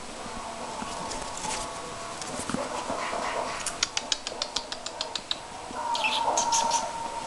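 Two puppies play-wrestling on a wooden floor: soft scuffling with small whimpering vocal sounds. A run of quick clicks comes in the middle, and a thin, high whine near the end.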